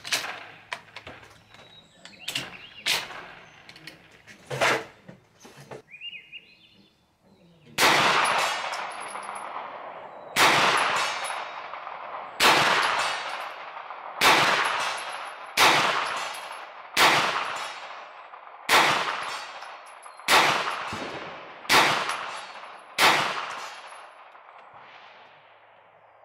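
Hi-Point 995TS 9mm pistol-caliber carbine fired ten times in slow, deliberate succession, one shot every second and a half to two and a half seconds, each trailing off in a long echo. A few sharp clicks come before the first shot.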